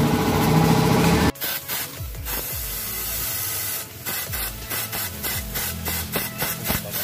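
A compressed-air blow gun fired in short, repeated blasts into a car engine's dipstick tube, pressurising the crankcase to force the last of the old oil out of the oil pan drain. For the first second or so a loud, steady sound runs, then cuts off suddenly before the blasts start.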